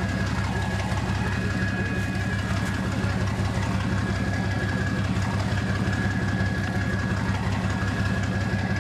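SNSM lifeboat's diesel engine running at low speed close alongside: a steady low hum with a thin high whine held over it.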